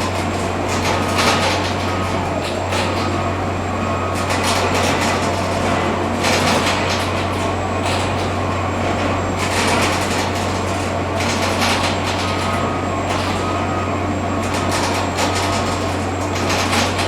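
Subway construction site noise: a steady low machine drone under a dense clatter of work, with bursts of harsher, hissing noise every couple of seconds.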